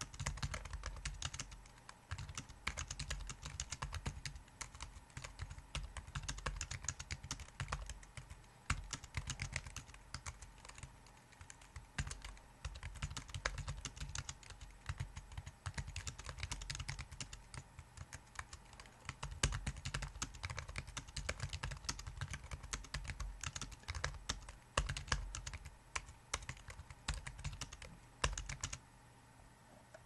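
Touch-typing at about 55 words a minute on an R-Go Split Keyboard: a rapid, steady patter of key presses with short pauses, stopping near the end.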